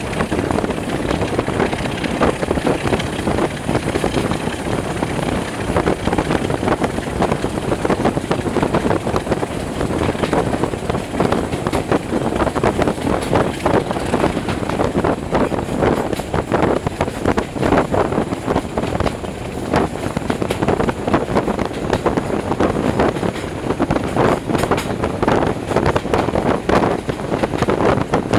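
Class 26 diesel-hauled passenger train running along the line, heard from an open coach window: steady wheel-and-rail noise mixed with wind buffeting the microphone.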